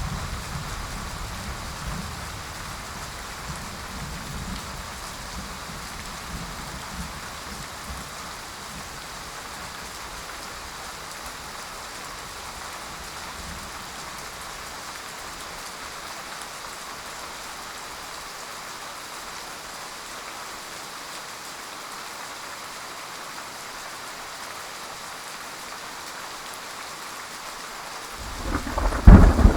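Steady heavy rain hissing. A low thunder rumble dies away in the first few seconds, and near the end a loud clap of thunder breaks in.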